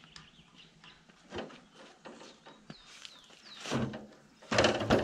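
Small birds chirping in short falling calls, with light clicks. Near the end comes a louder rattle and scrape as a metal wheelbarrow is handled and moved.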